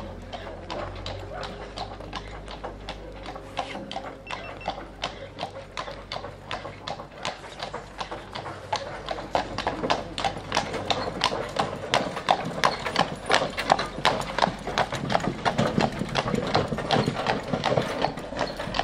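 A draft stallion's hooves clip-clopping on the road in a steady, even rhythm, growing louder from about halfway through. A low engine hum is heard under the first few seconds and fades out.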